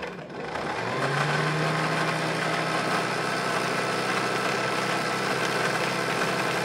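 Electric sewing machine motor running under the foot pedal to wind a bobbin, the needle disengaged: it spins up in the first second, then holds a steady whir.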